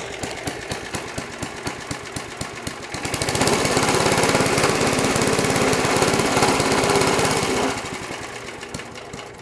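3.5 hp Briggs & Stratton single-cylinder four-stroke engine on a push lawnmower, running at a low idle, then revved up about three seconds in and held at high speed for around four seconds before it drops back down.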